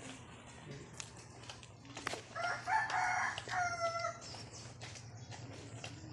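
A rooster crowing once, a single long call of about two seconds starting a little over two seconds in, over faint scattered clicks and a low steady hum.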